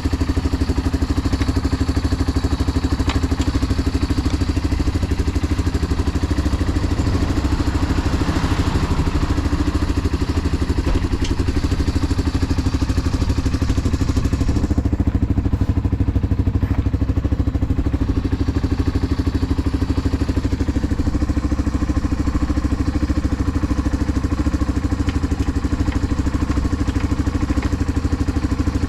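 Yamaha Serow 225WE's air-cooled single-cylinder four-stroke engine idling steadily through a Supertrap aftermarket up-muffler, an even rapid pulsing exhaust beat. It runs with no abnormal noise, in good running condition.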